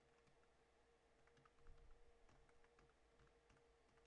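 Faint computer keyboard typing: scattered, irregular key clicks.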